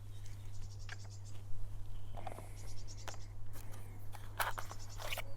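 Hook-link spools and small tackle items being handled: scattered light plastic clicks and rustles, over a low steady hum.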